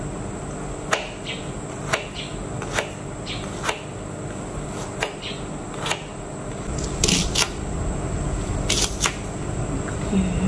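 Kitchen knife slicing lemongrass and onion on a plastic cutting board: sharp taps about once a second as the blade hits the board, then a few louder, longer cuts in pairs near the end.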